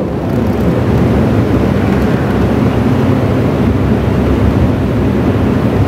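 Dense, steady low rumbling noise from a large mosque congregation moving down into prostration after the imam's call. It breaks off sharply near the end.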